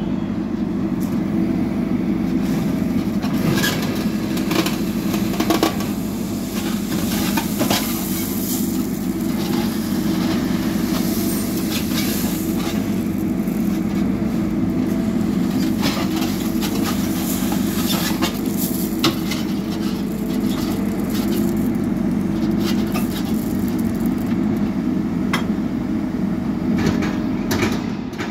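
JCB backhoe loader's diesel engine running steadily under load while the backhoe bucket works gravel in a trench, with scattered knocks and clatter of stones and the bucket throughout.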